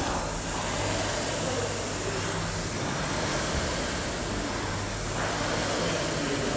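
Air-resistance indoor rowing machine's fan flywheel whooshing under hard rowing, swelling with each stroke about every two seconds.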